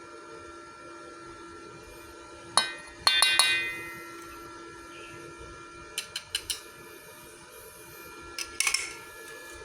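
Sharp metallic clinks and taps with a short ring, coming in four quick clusters over a steady hum.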